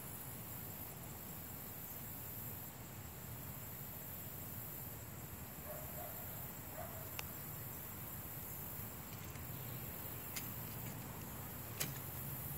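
Quiet woodland ambience: a steady high-pitched insect chorus that swells and fades over a faint low rumble, with three small sharp clicks in the second half.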